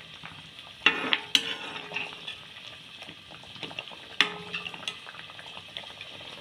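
A spoon stirring chicken curry in a pot, knocking sharply against the pot a few times, over the steady bubbling of the boiling curry.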